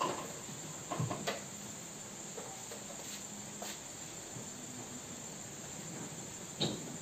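Quiet room tone with a steady high-pitched hiss, broken by a few faint knocks about a second in and again near the end.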